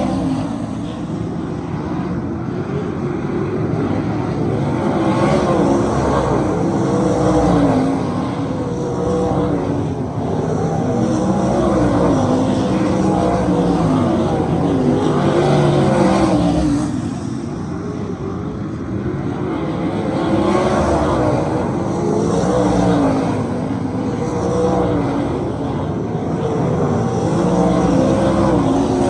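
A field of 410 sprint cars racing at speed, their 410-cubic-inch V8 engines running hard, the pitch rising and falling as drivers come off and back on the throttle. The sound swells and fades over and over as cars pass close by.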